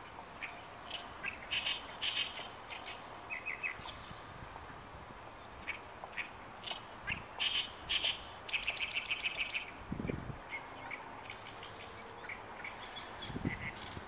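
Oriental reed warbler singing its territorial song in bursts of rapid, repeated notes, including a fast even rattle about nine seconds in. Two low thumps about ten seconds in and near the end.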